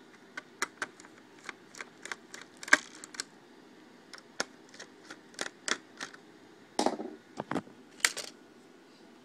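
Scattered light clicks and taps of a screwdriver and fingers on the plastic bottom case of an HP Pavilion dv6 laptop as screws are worked out, with a few louder handling knocks about three, seven and eight seconds in.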